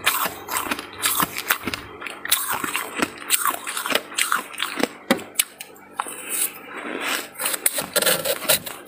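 Soft freezer frost being chewed close to the microphone: a dense, irregular run of sharp crunches and crackles.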